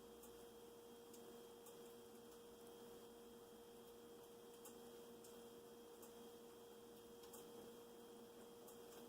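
Near silence: room tone with a faint steady electrical hum and a few faint ticks.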